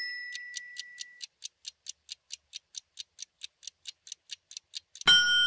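Countdown timer sound effect ticking quickly and evenly, about four or five ticks a second, with a start chime ringing out over the first second. About five seconds in, a loud time-up tone sounds to end the countdown.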